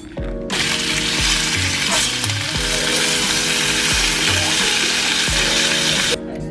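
Food sizzling in a frying pan: a loud, steady hiss that starts about half a second in and cuts off near the end, over a boom-bap hip-hop beat.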